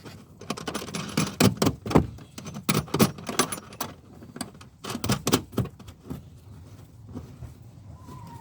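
Small metal parts and tools clinking and rattling as they are handled, in a busy run of sharp clicks and a second short run about five seconds in.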